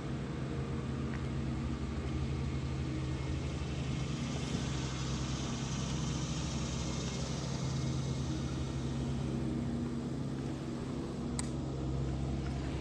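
Boat motor running steadily: a low, even hum.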